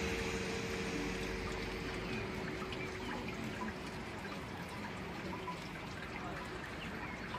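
Water running and splashing steadily, with small drips and trickles through it.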